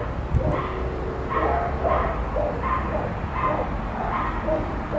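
A dog barking over and over in a steady run, about three short barks a second.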